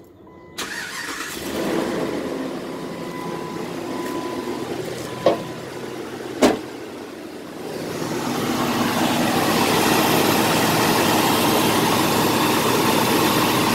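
Jeep Grand Cherokee engine starting about half a second in and then running steadily with its newly replaced fan clutch, which the owner thinks sounds right. Two sharp knocks come at about five and six and a half seconds. From about eight seconds on the engine and fan noise is louder and fuller, heard from the open engine bay.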